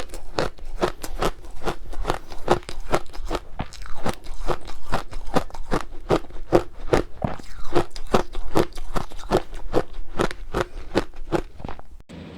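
Close-miked chewing of powdery freezer-frost ice dusted with matcha powder: rapid, repeated crunches, about four a second, that stop abruptly near the end.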